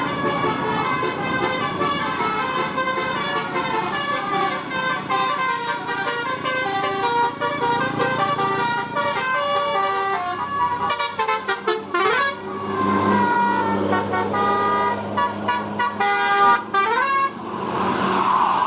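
Indonesian bus 'telolet' horn: a set of air horns playing a tune in stepped notes, several sounding at once. About twelve seconds in the pitch swoops down and back up, and a rising swoop comes near the end.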